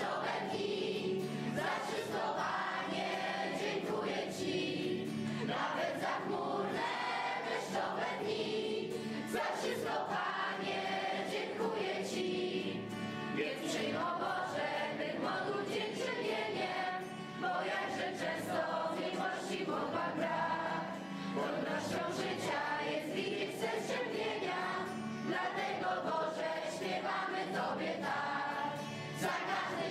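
Children's and teenagers' choir singing a religious song together, accompanied by a strummed acoustic guitar.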